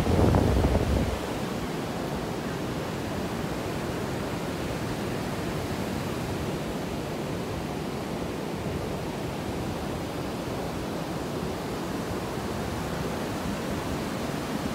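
Steady wash of ocean surf breaking on a sandy beach, with wind rumbling on the microphone for about the first second.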